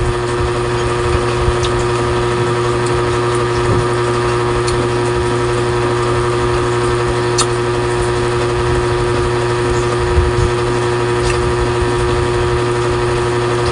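A steady motor hum at an even pitch, with a few faint, short clicks.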